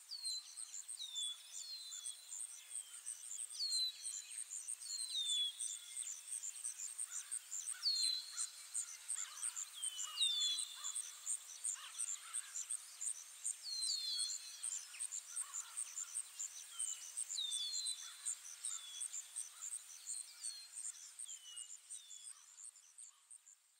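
Outdoor nature ambience: an insect's high-pitched chirp pulsing steadily a few times a second, with a bird's short, falling whistled calls repeating every second or two over it. Fades out near the end.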